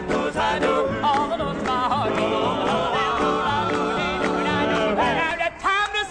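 Male gospel quartet singing with instrumental accompaniment over a steady beat, a voice bending and wavering through its notes.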